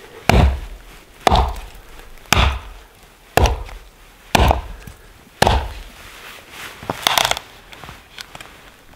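Hatchet chopping dead, dry cedar: about seven sharp blows, roughly one a second, the last a quick double strike.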